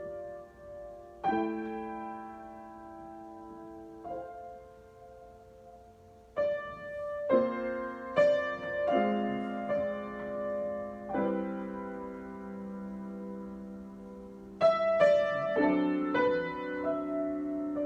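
Piano played in a slow, unhurried improvisation: chords struck and left to ring and fade, a new chord every second or two, with louder, fuller chords about halfway through and again near the end.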